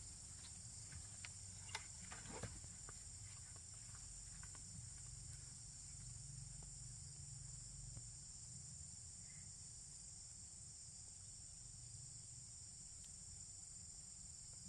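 Insects chirring steadily in one high, even band, with a few faint clicks and rustles in the first couple of seconds.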